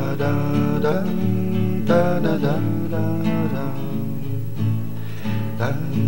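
Background music led by acoustic guitar, with no words sung.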